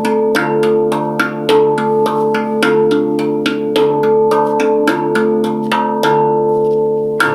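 Handpan played with even finger strikes, about three or four notes a second, each note ringing on over sustained tones. The strikes thin out near the end, leaving the notes to ring.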